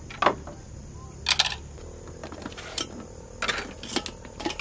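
Camping gear being handled: a nylon drawstring stuff sack opened and a compact camp stove pulled out, heard as a series of short rustles and clacks. The loudest come near the start and about a second and a half in.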